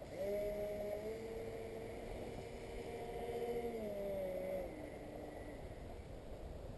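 Twin D2826-6 2200kv brushless motors spinning 6x4 propellers on a small electric RC plane flying overhead, a steady hum whose pitch shifts, drops about four and a half seconds in and fades away.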